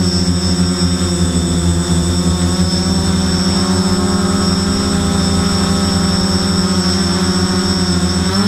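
FPV multirotor's electric motors and propellers, heard through its onboard camera: a loud, steady buzz with a thin high whine. The pitch rises near the end as the throttle changes.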